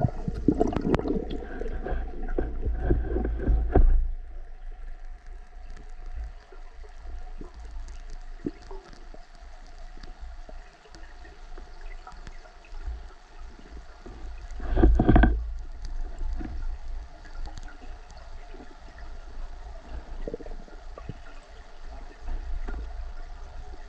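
Underwater sound of a breath-hold dive: low water rushing and gurgling against the camera housing, louder for the first four seconds and again in one short surge about fifteen seconds in.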